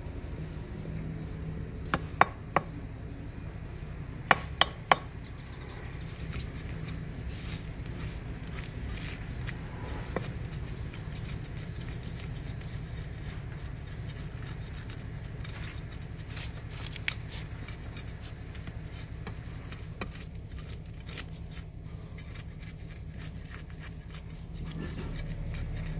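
Large kitchen knife cutting and scraping fish on a wooden chopping block. Two sets of three sharp knocks of the blade on the wood come about two and four and a half seconds in, then many light, quick taps and scrapes follow. A steady low rumble runs underneath.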